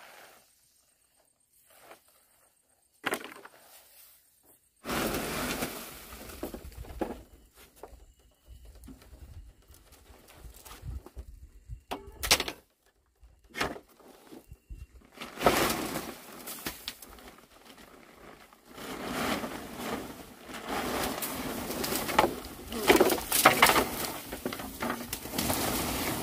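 Dry rice-straw thatch rustling and crackling as it is pulled and gathered by hand in uneven stretches, with a few sharp knocks of wooden roof poles.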